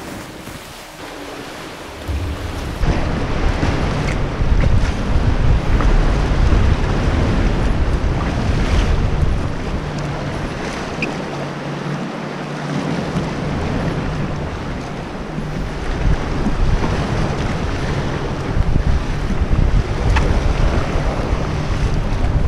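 Wind buffeting an action camera's microphone, with sea waves sloshing around an inflatable kayak. The first two seconds are quieter, then the loud wind rumble comes in and keeps up.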